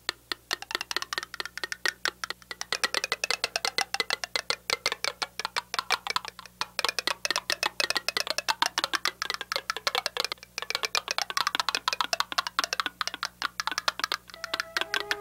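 Rapid, irregular wooden-sounding clicking, many clicks a second, with faint whistly tones behind it and two short breaks. Near the end, steady held musical notes come in.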